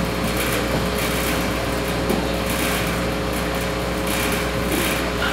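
Steady hum with a hiss and a few constant unchanging tones that hold evenly throughout.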